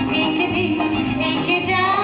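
Live band playing a Hindi oldie, with a woman singing over the accompaniment.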